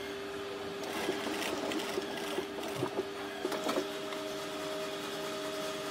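Pfaff industrial sewing machine stitching a leather shoe upper: a steady motor hum with irregular short ticks. A second, higher tone joins in about halfway through.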